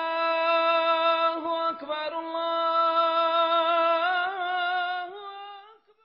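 Intro music: a single long held note, singing- or humming-like, with a slight waver that rises in pitch about four to five seconds in, then fades out shortly before the end.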